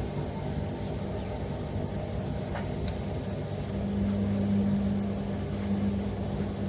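Panasonic NA-128XB1WSG front-load washing machine running, a steady motor hum that grows louder a little past halfway through, with a few faint clicks.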